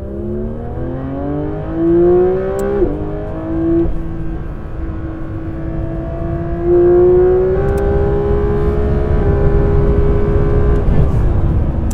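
Porsche 911 GT3 RS's naturally aspirated flat-six accelerating hard at full throttle. The pitch climbs for about three seconds and drops sharply at an upshift, then holds high and steady with small rises before the revs fall away near the end.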